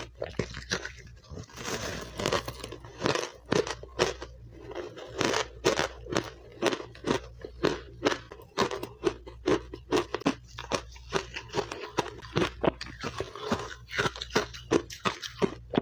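Biting and chewing powdery refrozen matcha ice close to a clip-on microphone: a fast, irregular run of crisp crunches, several a second, as chunks are bitten off the block and chewed.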